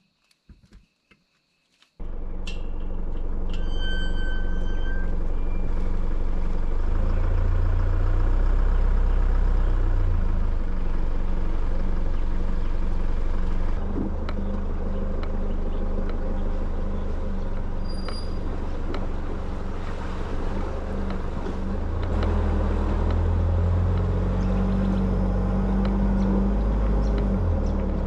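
A vehicle's engine and road noise: a steady low drone that comes in suddenly about two seconds in, after a few soft clicks. A brief high chime sounds just after the drone starts.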